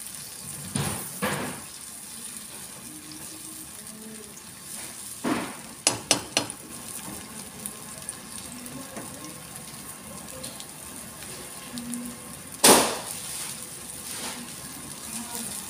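Egg with onion, tomato and bell pepper sizzling steadily in a nonstick frying pan over a gas burner, while a spatula stirs and knocks against the pan: two knocks about a second in, a quick run of four around the middle, and one loud knock near the end.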